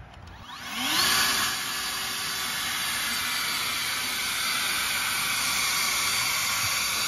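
Electric blower mounted on the back of a go-kart spinning up about a second in with a rising whine, then running steadily with a loud rush of air and a constant motor whine.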